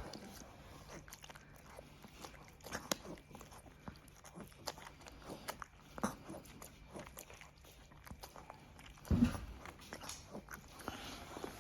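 A weak, partly paralysed dog chewing and mouthing softened dog food pushed in by syringe, making soft, irregular wet clicks and smacks. There is one brief, louder low sound about nine seconds in.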